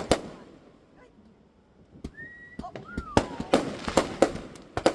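Fireworks exploding: a couple of sharp bangs at the start, a lull of about two seconds, then a quick string of bangs with two whistling tones gliding through them.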